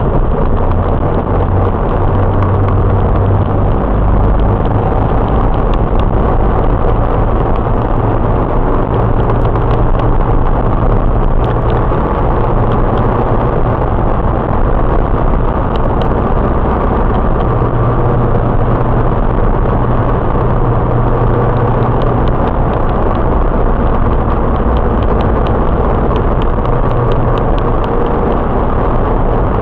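Steady engine and road noise of a car driving, heard from inside the cabin through the dashcam mirror's built-in microphone.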